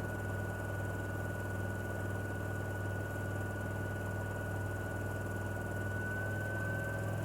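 A Miele appliance running with a steady low hum and a thin high-pitched whine over it; the whine holds steady and rises slightly in pitch near the end. This is the noise the owner is recording as a problem.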